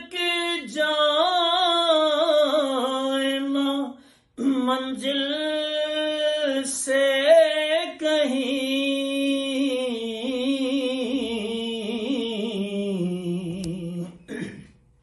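A man singing a naat, an Urdu devotional poem in praise of the Prophet, unaccompanied: long drawn-out notes that waver and slide between pitches, with short breaks for breath about four and eight seconds in.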